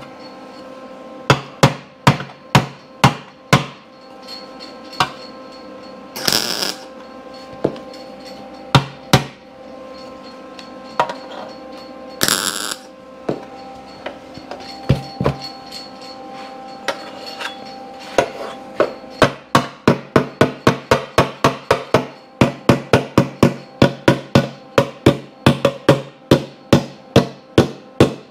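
Body hammer striking a sheet-steel motorcycle seat pan to work the contour of its welded repair, the pan ringing after each blow. Scattered blows at first, then a steady run of about three a second over the last ten seconds. Two brief hisses about six and twelve seconds in.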